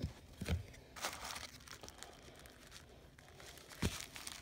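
Packing wrap rustling and crinkling as a parcel is unwrapped, with a few small knocks, the sharpest near the end.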